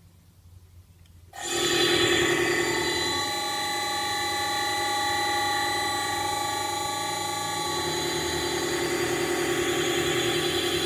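Electric motor on a variable frequency drive starting abruptly about a second in, then running with a steady electrical whine made of several tones over a low hum. The mix of tones changes twice as the speed knob on the pendant is turned.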